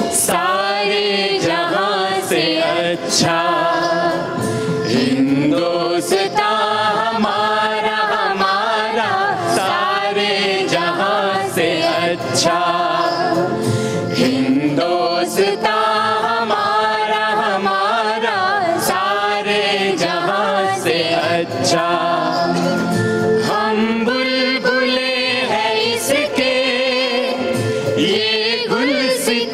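A song: a singing voice with a gliding melody over instrumental backing, with sharp percussion strikes about every two seconds.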